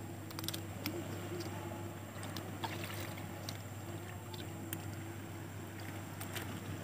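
Light clicks and splashes of a mud crab being handled and set down on rock in shallow water, over a steady low hum with a fainter tone that comes and goes.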